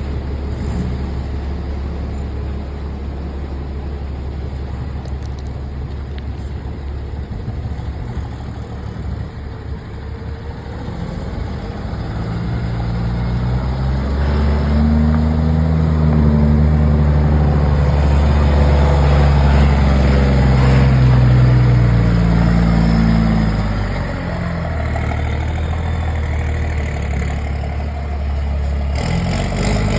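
Ford Cargo 1722 truck's diesel engine through a straight-pipe exhaust. It idles, is revved up and held higher for about ten seconds partway through, then drops back to idle.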